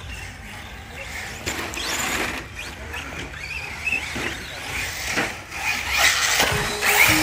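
Radio-controlled cars running on a track.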